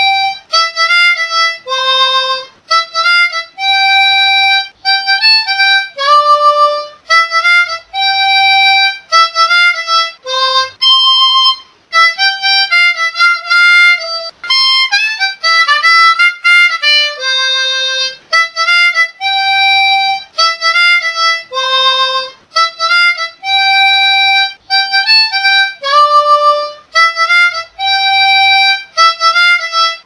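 A solo harmonica plays a simple melody one note at a time, mixing blown and drawn notes. The notes are short, separated by brief gaps, and the phrase repeats.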